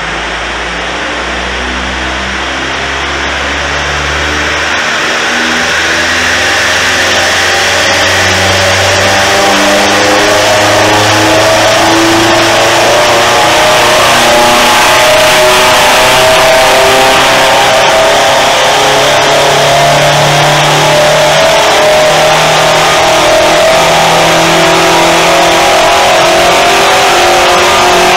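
Vauxhall Astra H VXR's hybrid-turbo 2.0-litre four-cylinder engine running under load on a rolling-road dyno through a 3-inch straight exhaust, getting louder over the first dozen seconds and then holding loud with its pitch slowly creeping up.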